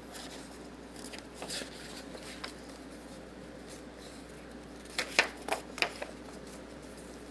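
A picture book being handled and opened: soft paper rustles, then a quick run of four sharp taps or clicks about five seconds in.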